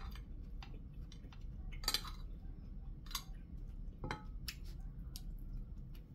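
Metal spoon clinking and scraping on a plate while rice is scooped up: scattered light clinks, with a louder one about two seconds in.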